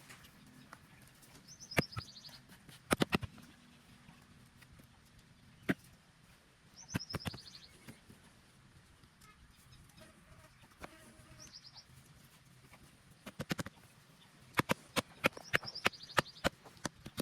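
A small bird calling four times in short, high, falling chirp trills, amid scattered sharp clicks and taps that come in a quick run near the end.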